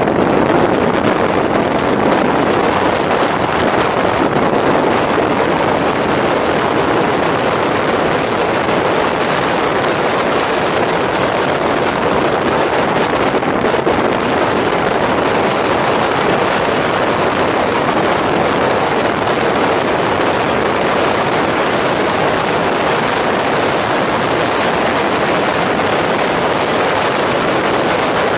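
Steady rush of wind noise and tyre roar from an electric bike ridden fast over a dirt and gravel trail, with no let-up.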